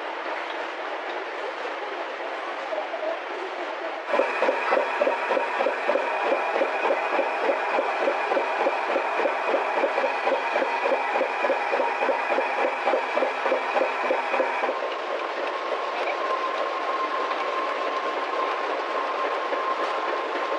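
Banknote printing-works machinery running: a steady mechanical hum. About four seconds in it becomes louder, with a fast, even clatter and a steady high whine. About fifteen seconds in that gives way to a quieter steady run with a single held tone.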